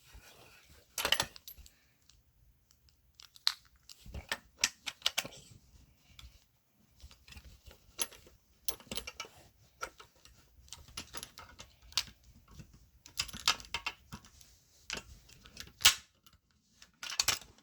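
Fire alarm pull station being reset by hand: scattered sharp clicks and short rattles of its handle and reset mechanism being worked, with brief pauses between them.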